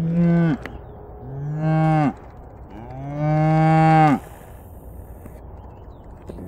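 Scottish Highland cow lowing three times in a row, each low moo longer than the last and the third the loudest: a mother's calls to her newborn calf.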